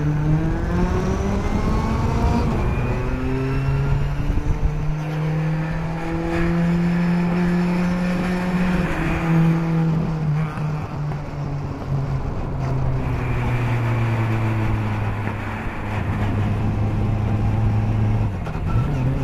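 Lotus Elan 26R's 2-litre aluminium-block four-cylinder engine pulling the car along, its note climbing and falling as it accelerates and eases off, with a few brief breaks in the note.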